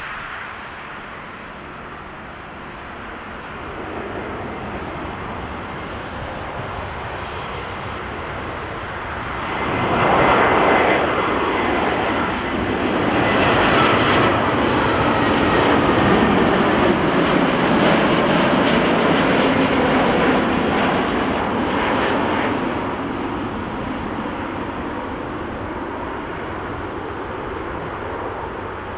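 Lufthansa Airbus A320neo on final approach, its Pratt & Whitney PW1100G geared-turbofan engines running at approach power. The engine noise swells sharply about a third of the way in as the jet passes close, with tones sliding down in pitch as it goes by. The noise then stays loud for some seconds and slowly fades as the aircraft descends toward the runway.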